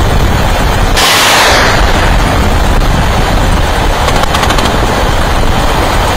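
Sustained rapid automatic gunfire: a loud, continuous, dense rattle of shots, growing sharper about a second in.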